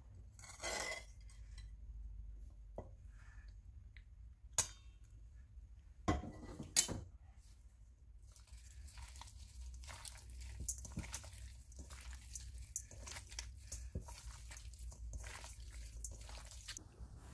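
A few sharp knocks and clinks against a stainless steel bowl. Then, from about eight seconds in, a gloved hand squishes and mixes raw octopus in chili oil sauce, giving a steady run of short wet squelches and clicks.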